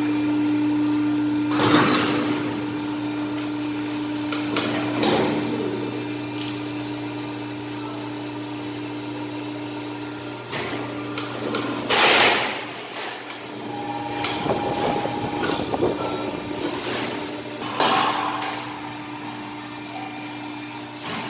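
Press brake running with a steady hum that weakens about halfway through, while a large thin stainless steel sheet is handled at it: several loud wobbling, rattling clatters of the flexing sheet metal, the loudest about midway.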